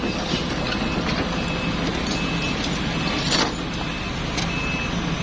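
Excavator diesel engine running steadily under scattered metallic clanks, with a louder clank about three and a half seconds in. A short high beep, typical of a machine's travel alarm, repeats every second or so.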